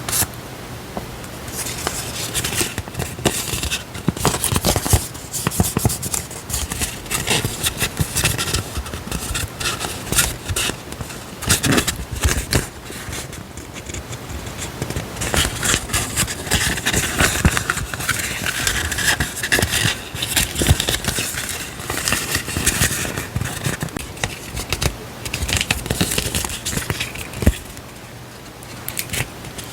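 Paper stationery and its packaging handled close to the microphone: dense rustling, crinkling and scraping, with many small taps and clicks.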